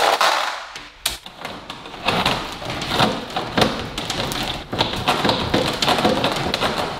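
Fish tape rattling and scraping as it is pulled off its plastic reel and pushed into a wall pipe: a dense, uneven run of clicks, taps and rubbing.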